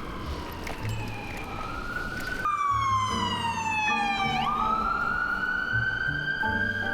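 Emergency vehicle siren wailing, its pitch sliding slowly down, up, down again and back up, with a sudden jump in pitch about halfway through, over background music.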